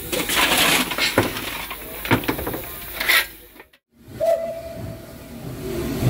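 Steam locomotive blowing off steam in several loud, irregular hissing bursts. After a short break, a single steady whistle note starts sharply and fades over about two seconds.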